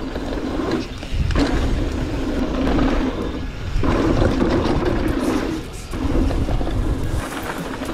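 Mountain bike riding downhill: wind rushing over the camera microphone with the tyres and bike rattling over the dirt trail, easing off briefly a few times.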